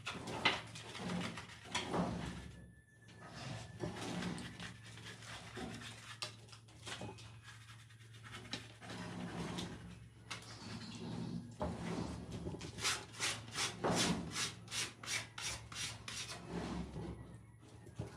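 Hand scraping and rubbing on plaster, irregular strokes with a quicker run of short, even strokes, about three or four a second, a little over two thirds of the way through. A steady low hum runs underneath.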